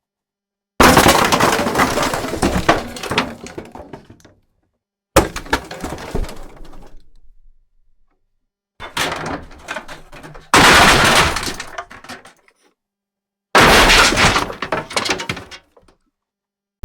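A run of ceiling-collapse sound effects: five separate loud crashes of breaking and falling debris, each starting suddenly and tailing off over one to three seconds, with silence between them.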